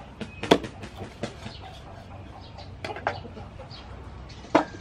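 A cleaver chopping through pork ribs onto a wooden chopping board: a handful of sharp, irregularly spaced chops, the loudest about half a second in and another strong one near the end.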